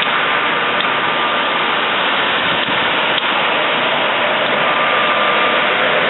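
A train running at the station: a loud, steady rush of noise with a faint, thin high whine over it.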